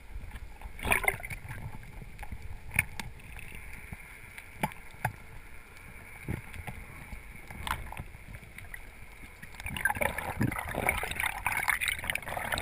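Underwater sound through a camera housing: a low rumble with scattered sharp clicks and knocks, and a rushing water noise that builds over the last few seconds.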